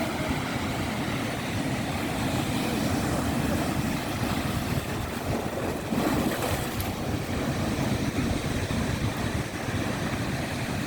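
Sea waves washing in, a steady rushing of surf mixed with wind buffeting the microphone.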